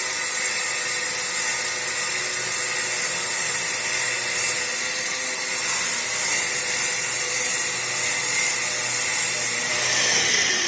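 Bosch angle grinder with a 125 mm disc cutting into a wall through a dust-extraction shroud, with a shop vacuum drawing the dust off: a steady high-pitched whine that begins to wind down near the end.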